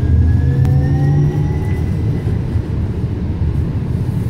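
Heard inside the car of a Metro Transit light rail tram under way: a steady low rumble from the running gear, with the electric traction motors whining in rising tones for about the first two seconds as the tram picks up speed.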